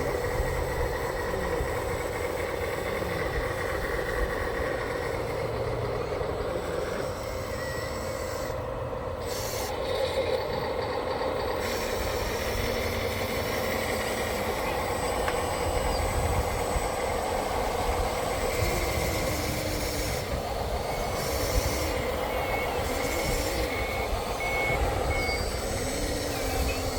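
Steady hum of running machinery, with a reversing alarm beeping about five times near the end.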